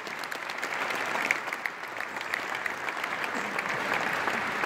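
A large audience applauding, many hands clapping together steadily.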